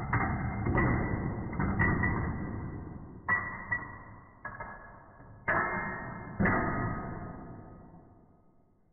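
Padlocks toppling one into the next like dominoes: a run of metal clacks, each ringing briefly, irregularly spaced. The last clack comes about six and a half seconds in and its ring fades away.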